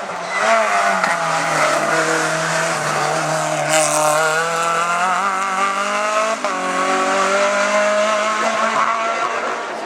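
Hillclimb race car engine pulling hard under acceleration: its pitch climbs steadily, breaks briefly with an upshift about six and a half seconds in, then climbs again. A short hiss comes near four seconds.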